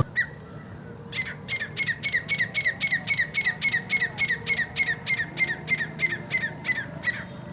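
A bird calling a fast, even series of about twenty short, sharp notes, roughly three a second, starting about a second in and stopping near the end.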